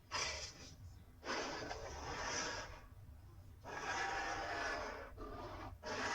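Carcharodontosaurus creature sound effects: a run of breathy, rasping growl-roars, one after another with short pauses between them. The longest lasts about two seconds.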